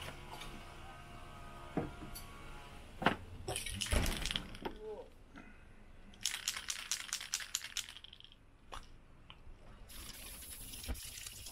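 Cardboard box being handled with a few knocks, then an aerosol can of Tamiya TS-6 matt black spray paint shaken, its mixing ball rattling about five times a second. Near the end the spray starts with a steady hiss as paint goes onto the inside of the carton.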